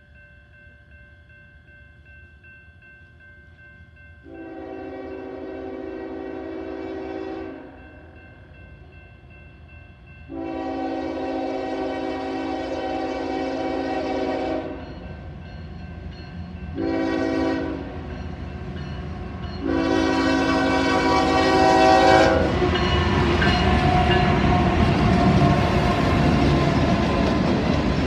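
Union Pacific GE AC45CCTE locomotive sounding its five-chime Nathan K5HL air horn in the grade-crossing signal: two long blasts, one short, then a final long one. A crossing bell rings faintly beneath at the start, and after the last blast the locomotive's engine and wheels on the rails grow loud as it passes.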